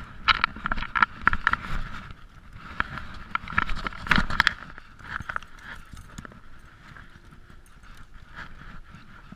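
Metal chain fish stringer clinking and rattling as white bass are handled and clipped onto it, with the fish flopping against concrete. The clattering comes in quick dense runs over the first couple of seconds and again around three to four seconds in, then thins out.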